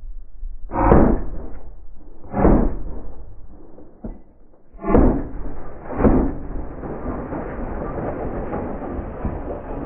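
Four pistol shots from a 9 mm Smith & Wesson M&P fired from inside a car's cabin through the windshield: two shots about a second and a half apart, a pause, then two more about a second apart.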